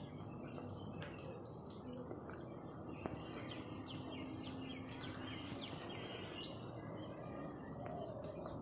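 Faint steady background hiss with short high chirps, clustered in a run about three to six seconds in.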